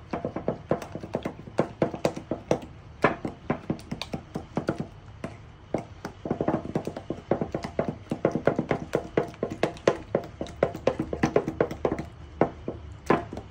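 Wooden spoon stirring batter in a glass bowl, knocking and scraping against the glass in quick, irregular clicks. The clicking eases off for a moment about four seconds in, then picks up again and grows denser.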